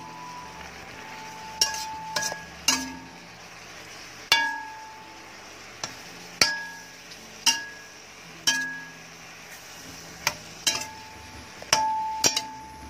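Stirring spoon knocking and scraping against a stainless steel pan while lamb is stirred. About ten irregular knocks, roughly one a second, each leaving the pan ringing briefly.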